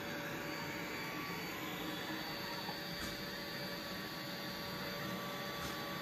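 Samsung Jet Bot AI+ robot vacuum running as it cleans carpet: a steady whir with faint constant tones held over it.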